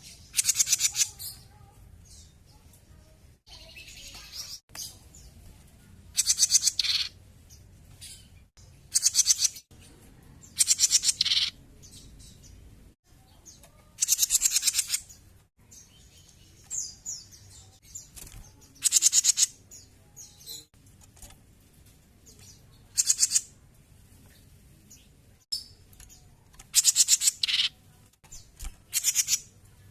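Grey-cheeked bulbul (cucak jenggot) singing in loud, rapid trilled phrases, each about a second long, repeated a dozen or so times with pauses of a few seconds between.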